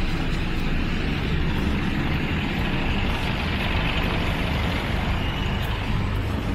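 City street traffic: vans and cars running and idling in slow traffic beside the pavement, a steady low rumble.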